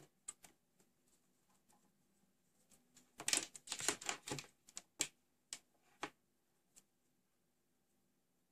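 Wires and alligator-clip test leads handled on a tabletop: a quick cluster of light clicks and rattles a few seconds in, then a few single clicks.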